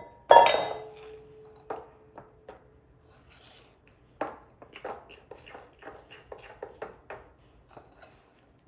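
A stainless steel mixing bowl set down on the counter with a loud clang that rings on as one fading tone for about a second. Then a metal spoon stirring dry flour and wheat bran in a bowl, with light scrapes and clinks from about four seconds in.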